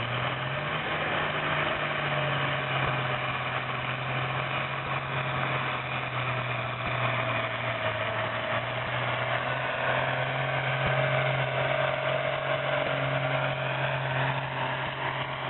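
Diesel engine of a pulling tractor, a Detroit two-stroke V6, running hard and steady while it drags the weight sledge down the track. The engine note holds an even pitch throughout.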